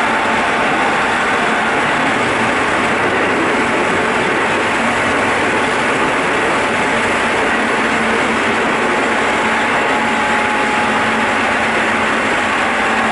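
Keikyu 800 series EMU running noise heard from the car floor above the bogie: a steady rumble of wheels on rail with a faint steady whine. The speed stays even throughout.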